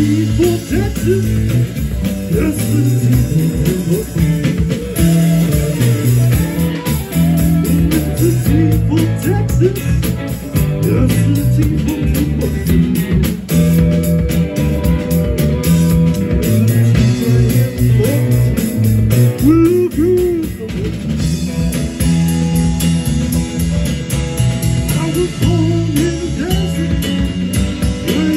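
Live rock band playing: electric guitar with bending notes over bass and a drum kit.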